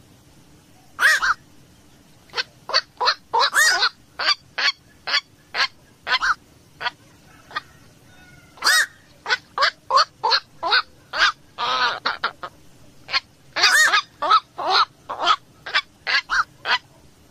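Black-crowned night heron calling: a fast, uneven series of short, harsh calls, with a few longer, drawn-out ones among them.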